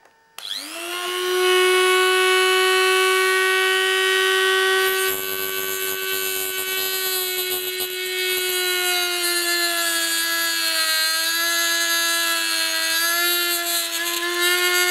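Dremel rotary tool with a cut-off wheel spinning up about half a second in to a steady high whine, then cutting into acrylic, its pitch dipping and wavering under the load from about the middle on.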